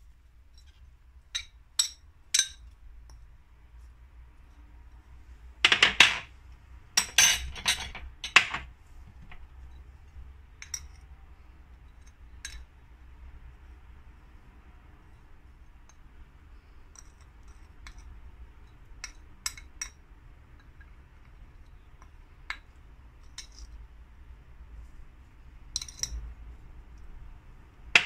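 Spoon and dishes clinking against ceramic plates and glass bowls as herbs and spices are tipped and scraped onto minced meat: scattered sharp clinks and taps, with a burst of louder ones about a quarter of the way in.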